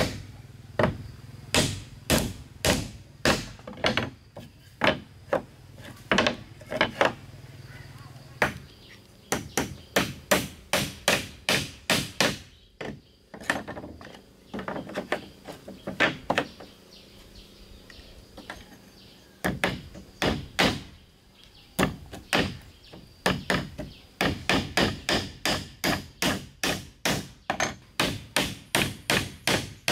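A hatchet striking wooden roof planks: runs of sharp wooden blows, about two or three a second, broken by pauses of a second or two.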